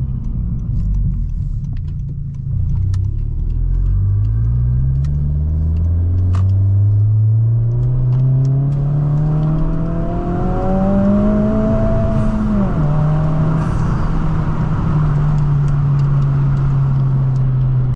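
Honda Civic Si's turbocharged four-cylinder, fitted with a MAPerformance race cat-back exhaust, accelerating through a gear with a steadily rising note. The pitch drops sharply about two-thirds of the way through at the gear change, then the engine holds a steady note.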